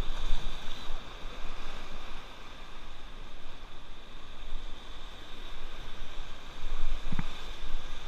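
River water rushing and splashing around an inflatable raft on a rafting run, a steady noisy wash that swells and falls, with a low rumble and a single sharp knock about seven seconds in.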